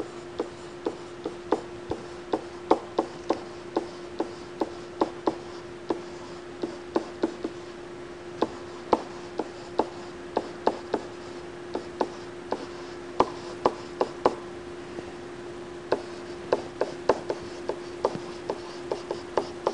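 A stylus clicking and tapping on a tablet screen while words are handwritten: sharp, irregular ticks, about one or two a second, over a steady low hum.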